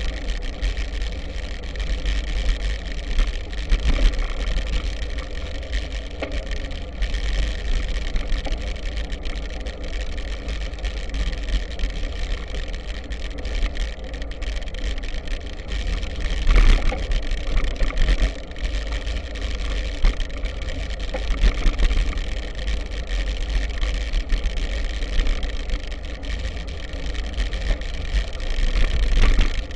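Wind rumbling on the microphone of a camera riding on a BTWIN Triban 100 gravel bike, over a steady hiss of tyres rolling on a dirt road, with a few jolts from bumps, the largest about two-thirds of the way through.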